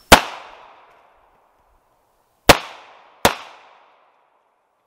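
Three pistol shots from a SIG Sauer P232 pocket pistol firing .380 ACP (9mm Kurz) Hydra-Shok lead-core hollow points: one at the start, then two more close together about two and a half seconds later. Each crack trails off in a short echo.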